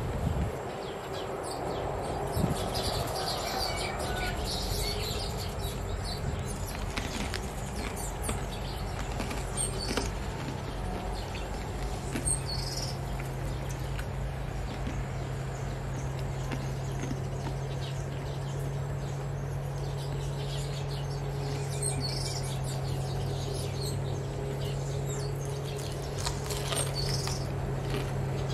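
Garden ambience with birds chirping now and then over a steady background noise. A steady low hum comes in about twelve seconds in.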